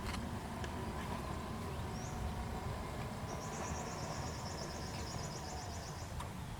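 Outdoor nature ambience: a steady low rumble with a faint wavering tone, and a high, rapid trill from a bird or insect from about three seconds in to about five and a half seconds.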